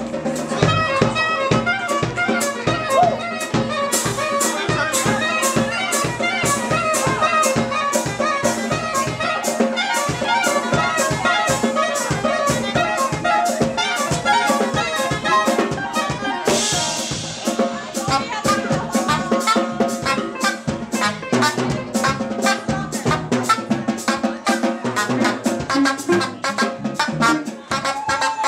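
Live jazz band playing: a soprano saxophone over a drum kit keeping a busy, steady beat, with the band behind it.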